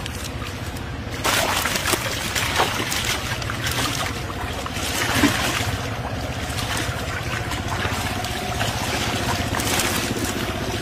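Water splashing and sloshing as a net full of large fish is dragged through shallow water, with several sharper splashes along the way, over a steady low hum.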